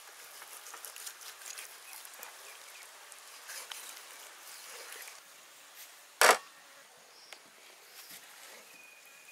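Quiet outdoor ambience with faint scattered taps and rustles, and one short loud thump about six seconds in.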